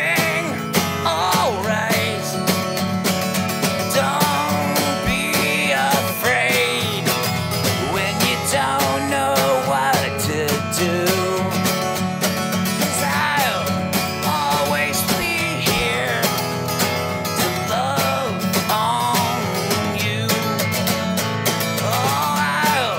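Live acoustic country song: an acoustic guitar strummed with a steady drum beat played with sticks, and a man singing.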